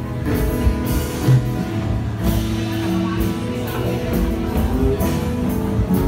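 Rock music from a live band: electric guitar over a drum kit.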